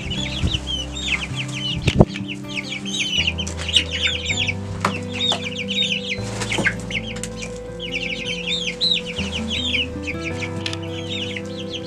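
A flock of young chickens peeping and cheeping: many short, high, arched chirps overlapping with hardly a gap. Soft background music with steady low chords plays underneath.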